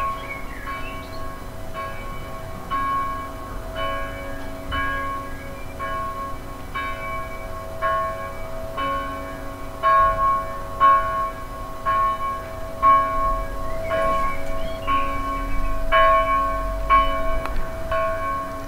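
Church bells ringing, a stroke about once a second, with the ringing notes hanging on between strokes.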